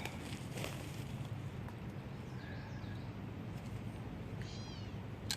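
Steady low rumble of wind on the microphone, with a single short, falling, mewing animal call near the end and a sharp click just after it.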